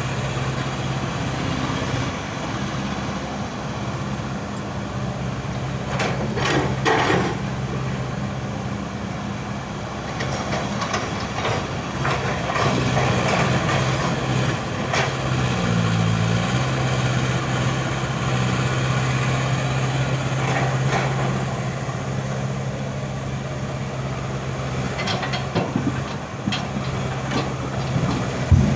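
Excavator's diesel engine running steadily under load, its pitch dipping briefly about halfway through, with harsh scraping and clanking bursts about six seconds in and again near the end.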